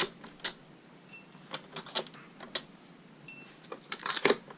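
Irregular small clicks and taps of a screwdriver and loose screws on the original Xbox's plastic case as its case screws are removed, with two brief high whines.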